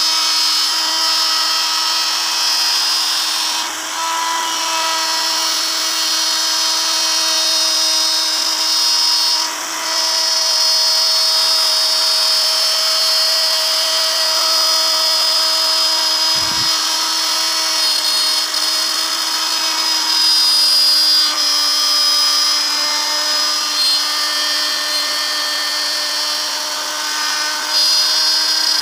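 Makita handheld router running at speed while its bit cuts grooves into wood: a steady high motor whine that dips briefly now and then as the cut loads it.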